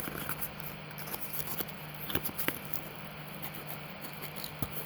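Small clicks, taps and scrapes of fireworks and their cardboard packaging being handled, over a faint steady low hum.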